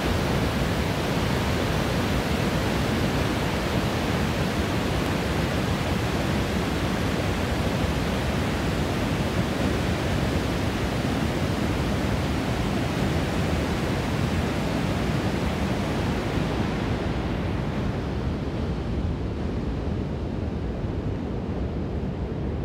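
Heavy water pouring down a concrete dam spillway into the gorge below: a loud, steady rush with no let-up. The higher hiss thins out in the last few seconds, leaving a duller rumble.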